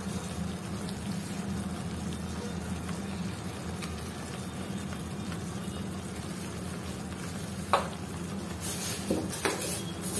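Thick tomato and dried-red-chilli momos chutney simmering and bubbling in oil in a frying pan over a low gas flame, a steady sizzle, with a light click near the end.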